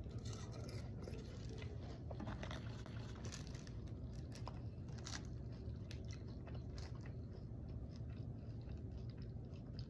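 Close-up eating sounds: a person chewing salad with soft crunches and small mouth clicks scattered throughout, over a low steady hum.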